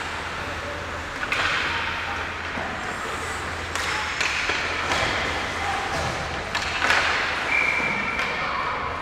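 Ice hockey rink sounds during open play: skate blades scraping and cutting the ice in several sudden hissing strokes, with knocks of sticks and puck and players' voices calling out, over a low steady arena hum.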